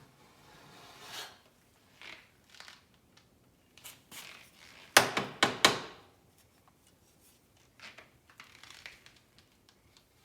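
Cheese-grater body-filler file shaving still-soft body filler off a steel bumper in short rasping strokes. Three loudest strokes come close together about halfway through, with fainter, scattered strokes before and after.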